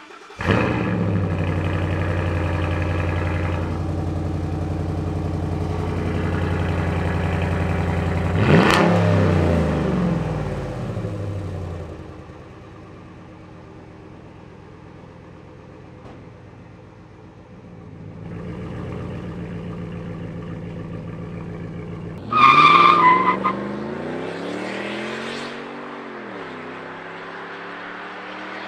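Ford F-150 Raptor's 6.2-litre V8 idling through valved mufflers with the resonator deleted: loud with the muffler valves open for about the first twelve seconds, then noticeably quieter with the valves closed. About 22 seconds in, the truck drives past loudly, its pitch rising and then falling.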